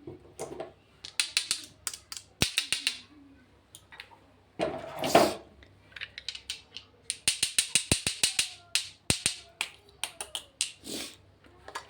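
Plastic makeup packaging handled close up: quick runs of small sharp clicks and taps, with one longer, louder rustle about five seconds in.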